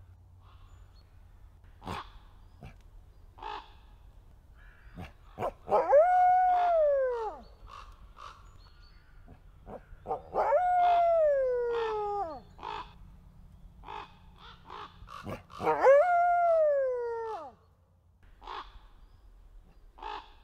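Red wolf howling three times, each howl a long call that rises briefly and then slides down in pitch, with pauses of a few seconds between howls.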